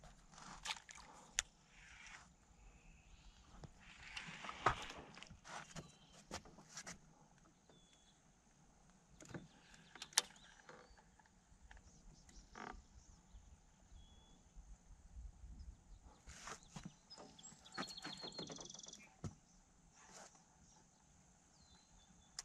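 Quiet outdoor ambience over water, with scattered faint clicks and knocks and a few short, high wildlife chirps.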